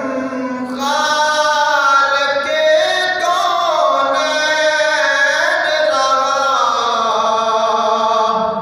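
A man singing a manqabat, an Urdu devotional praise poem, unaccompanied into a microphone: one long, ornamented line that slides up and down in pitch, with a brief break about a second in.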